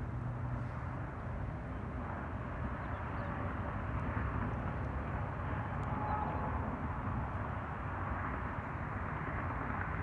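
Rushing hiss of a small electric ducted-fan RC plane (the PlanePrint EDF Seagull with a 50 mm fan) flying around, swelling about midway and again near the end, over a steady low rumble of wind on the microphone.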